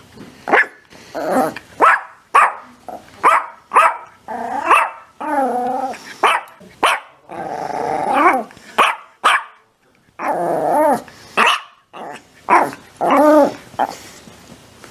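Dog barking repeatedly: short sharp barks, about two a second, broken by several longer calls that bend up and down in pitch, with a brief pause about ten seconds in.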